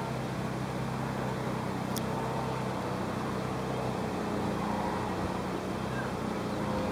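An engine running steadily, a low hum with even pitch, over background noise. There is one sharp, high tick about two seconds in.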